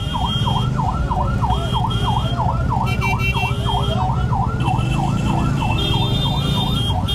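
A fast yelp siren, its pitch sweeping down and up about three times a second without a break, over the low hum of vehicles idling in traffic.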